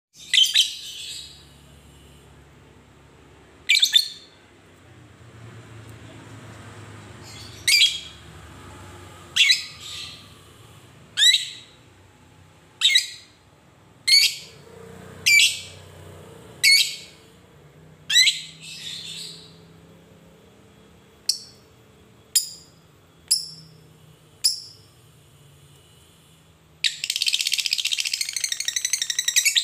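Fischer's lovebird giving single sharp, high chirps every second or two, then near the end breaking into a continuous rapid chatter: the long 'ngekek' trill that fighter lovebirds are kept and trained for.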